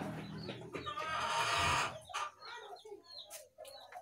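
Chickens clucking: a loud, harsh stretch that ends about two seconds in, then short scattered calls.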